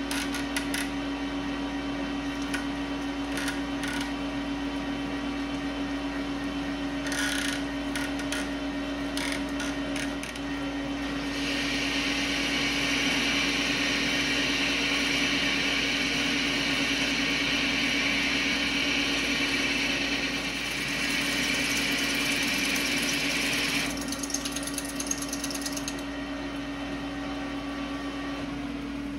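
Metal lathe running with a steady hum, with a few clicks in the first seconds as the segmented plastic coolant hose is bent into place. From about 12 seconds in, a turning cut under flood coolant adds a loud hiss of cutting and coolant spray, which stops abruptly about 24 seconds in.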